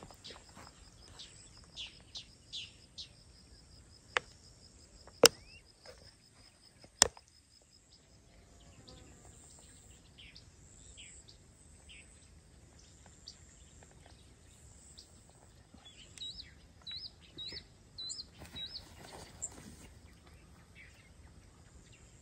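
Dawn bird calls in open grassland: scattered short chirps, and near the end a bird repeating a short rising whistle several times. Three sharp clicks in the first third are the loudest sounds.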